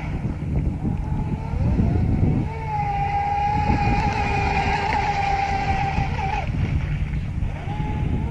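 Atomik Barbwire XL RC speedboat's electric motor, on a 3S battery, whining as the boat runs at speed. The pitch rises about two seconds in, holds steady, dips about six and a half seconds in and climbs back near the end, over a low rushing noise.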